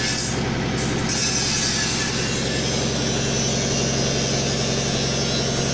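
Water poured from a plastic bottle splashing onto a freshly welded motorcycle side stand to cool the weld, over a steady low machine hum.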